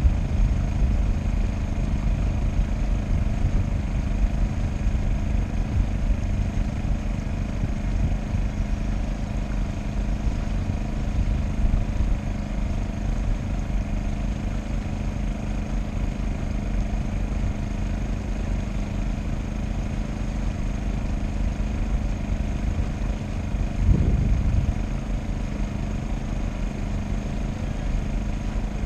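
A boat's engine running steadily at low speed, a constant low hum. It swells briefly louder once near the end.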